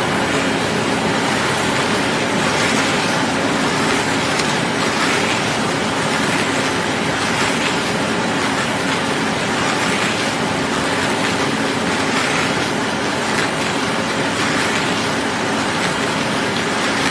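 T60 silage baler-wrapper machine running, a loud steady mechanical noise with a low hum that swells in a regular cycle about every two and a half seconds.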